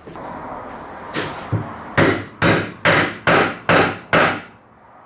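Sharp blows knocking a wooden joint together, tapping a loose tenon down into its mortise: a couple of lighter knocks, then six evenly spaced strikes about two a second.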